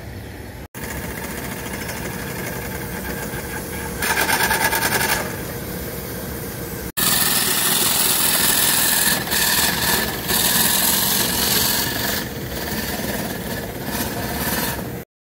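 2-inch scale Durham and North Yorkshire steam traction engine running and driving under steam, with a rapid, even beat that grows louder in stretches.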